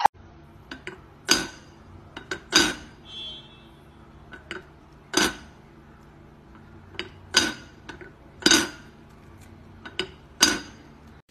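A cat's paw tapping and lifting the lid of a black teapot so that it drops back onto the pot: about half a dozen sharp clinks, a second or two apart, each with a short metallic ring, with lighter taps between.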